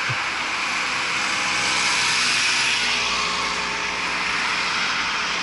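Road traffic passing at speed: the rushing noise of car tyres and engines, swelling about two seconds in and then easing off.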